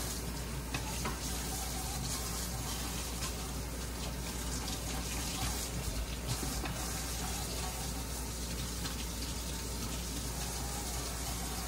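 Kitchen tap running steadily, the stream splashing over an arrow shaft and its fletching as the soap is rinsed off under it.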